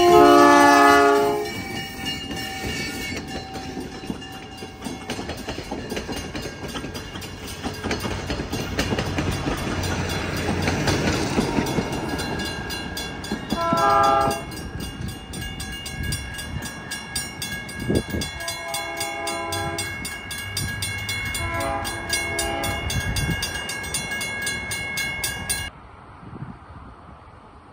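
ALCO RS-11 diesel locomotive's horn blowing a loud blast as the train passes. The passenger cars roll by over the rails with a grade-crossing bell ringing steadily. The horn sounds again about halfway through and twice more a few seconds later, fainter, and the train noise cuts off near the end.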